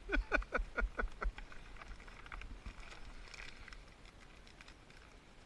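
A man laughing, a quick run of about six falling "ha"s in the first second and a half, followed by faint scattered clicks.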